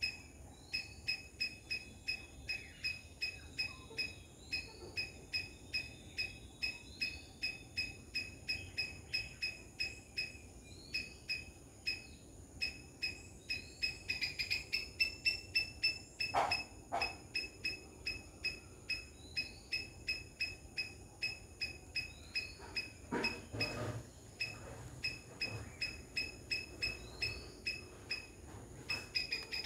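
Rhythmic high-pitched calling, about three pulses a second, with a short rising whistle every second or two; a few soft knocks come in the second half.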